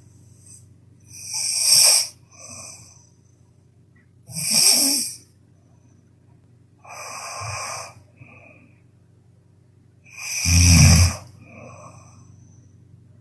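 A person snoring loudly in slow, separate breaths. The strongest snores come about four and about ten seconds in, with a low buzz, and softer breathy breaths fall between them.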